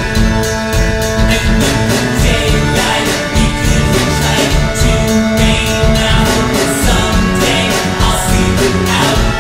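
Background music: a song with guitar and a steady drum beat.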